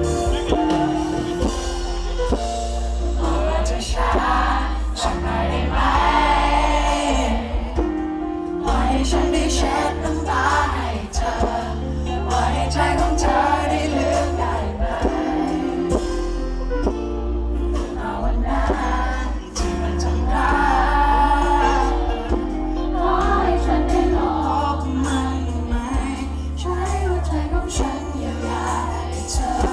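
A male singer performing a pop song live with a band over the PA, with a heavy bass line under the vocal.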